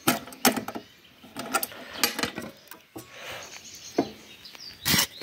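Sheet-steel battery box being opened: its spring latch is unclipped and the metal lid lifted, giving a series of sharp clicks and clanks, the loudest near the end.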